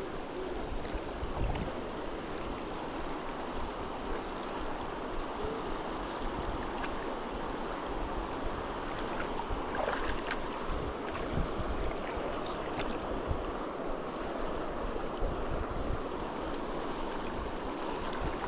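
Steady rush of a fast-flowing river, with irregular low rumbles of wind on the microphone.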